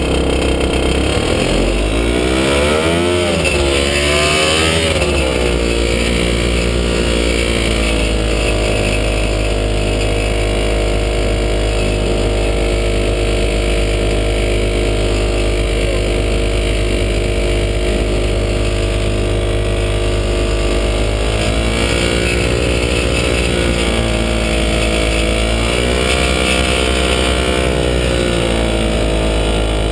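Falcon XP single-seat ultralight's engine running close by as the plane taxis on grass. Its revs rise and dip a few times in the first few seconds, hold steady, then drop and climb again near the end.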